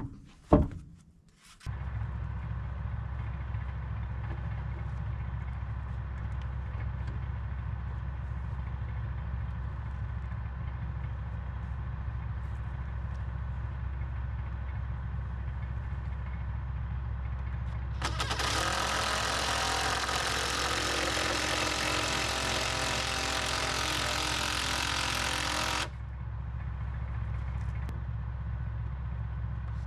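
An engine starts running steadily about a second and a half in, with a low, even hum. Midway through, a louder hissing noise lasts about eight seconds over the engine, then stops suddenly.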